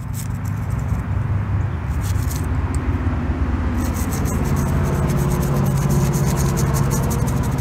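Toothbrush scrubbing the metal base of a die-cast model car in scrubbing strokes. Under it runs a steady low engine rumble that grows louder over the first few seconds and is the loudest sound.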